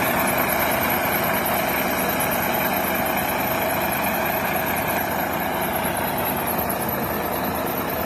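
Scania K380 coach engine running steadily, a constant even drone with no revving.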